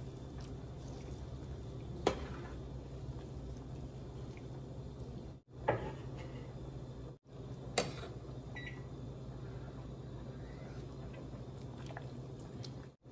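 A few light metal clinks of a spoon against a stainless steel stock pot of simmering soup and its lid, over a steady low hum.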